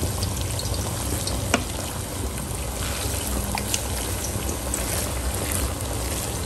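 Wooden spatula stirring and turning jollof rice with diced carrots and onions in a pot, over a steady sizzle from the pot on the heat. One sharp click, the spatula against the pot, about a second and a half in.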